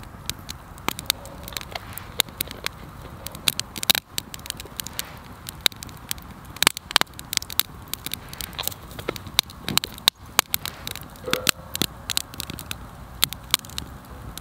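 Wood campfire crackling, with sharp irregular pops several times a second over a low steady hiss.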